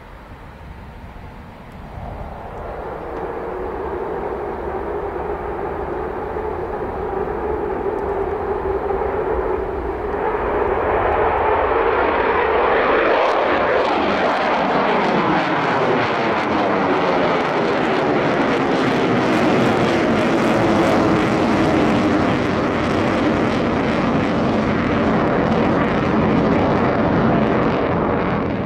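Eurofighter Typhoon's twin EJ200 turbofan engines in afterburner on a performance take-off. The jet noise builds as the jet accelerates, grows louder about ten seconds in as it climbs away steeply, and stays loud with a sweeping, phasing sound. It ends abruptly near the end.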